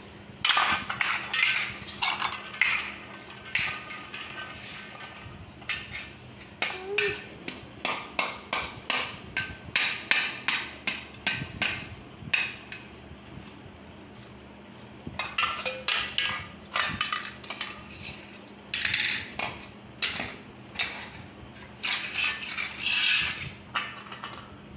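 A small child banging and tapping household objects such as dishes or utensils: bursts of clattering knocks, some ringing briefly, at about two strikes a second in places, with short pauses between runs.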